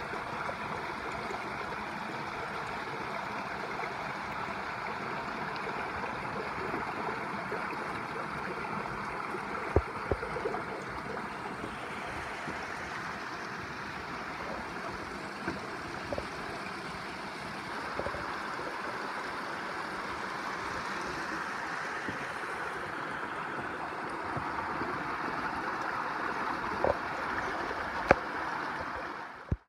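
Small mountain stream cascading over boulders: a steady rush of splashing water. A couple of sharp knocks, around the middle and near the end.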